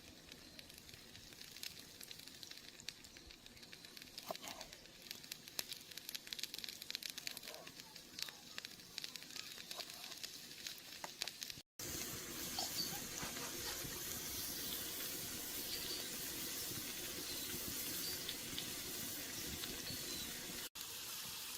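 Onions and potatoes frying in butter in a pan over a campfire, sizzling with fine crackles and pops. After a brief cut about halfway, the sizzle turns steadier and louder.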